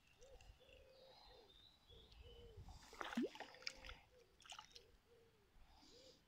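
Faint splashing of a hooked European chub thrashing at the water's surface as it is reeled in, loudest about three seconds in.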